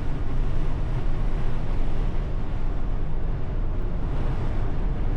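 Strong wind buffeting a 1991 Volkswagen Vanagon Syncro camper van as it drives down the highway: a steady rushing noise over the low hum of the engine and road.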